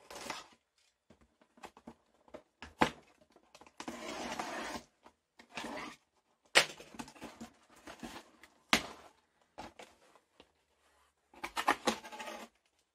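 Plantain chip pouches and their cardboard box being handled: short stretches of crinkling and rustling with a few sharp knocks between, and quiet gaps in between.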